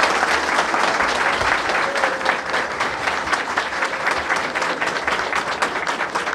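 Audience applauding: many hands clapping together in a dense, steady patter that eases slightly after the first couple of seconds.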